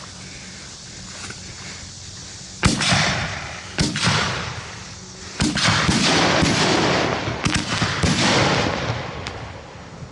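1.75-inch canister firework shells launching and bursting: a run of sharp bangs starting about two and a half seconds in, each trailing off, with the bangs coming closer together toward the middle.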